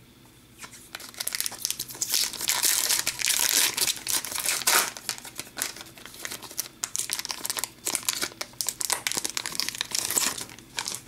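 Foil wrapper of a hockey card pack crinkling as it is torn open and the cards are slid out. It starts about a second in, is densest for the next few seconds, then breaks into scattered crackles.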